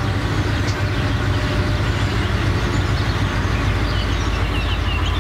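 Steady low engine rumble of a modern regional train standing at the platform. Short birdlike chirps come in over it near the end.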